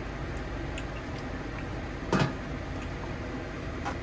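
Kitchen clatter: a single loud clunk about two seconds in and a lighter click near the end, over a steady background hum.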